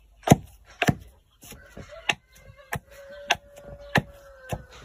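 Hand pounding in a small mortar with the wooden handle of a hatchet, crushing dry food: a steady run of sharp knocks, about eight, a little over half a second apart.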